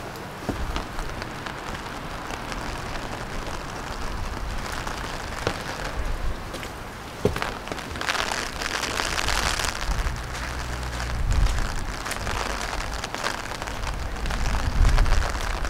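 Rain falling on wet ground, with many separate drops ticking close by. Two low rumbles come in the second half.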